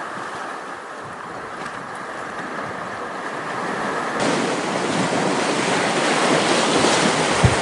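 Steady rushing noise that slowly grows louder and turns brighter and hissier about four seconds in.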